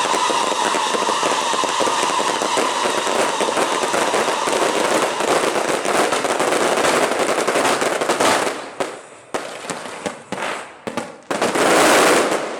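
Fireworks crackling: a dense run of rapid bangs that thins out about eight seconds in into separate bursts, with one last loud burst near the end.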